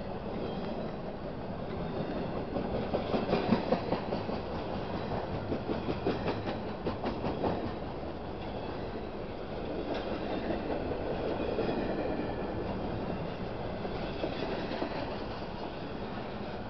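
Wheels of a CSX intermodal freight train's well cars rolling past on the rail: a steady rumble with runs of clicking over the rail joints, loudest a few seconds in.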